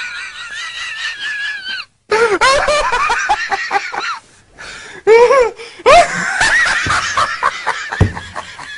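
A man in a helpless fit of laughter: high-pitched, wavering laughing in several bursts, broken by short pauses for breath about two seconds and four and a half seconds in.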